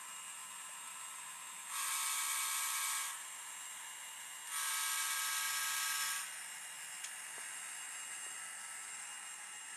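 Digitrax sound decoder in a Kato N scale GE ES44AC locomotive sounding a diesel air horn twice through its 13 mm speaker, two blasts of about a second and a half each, over a steady hiss.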